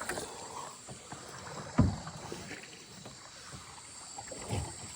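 Canoe being paddled, with faint water and paddle noise, a thump against the canoe about two seconds in and a softer one near the end.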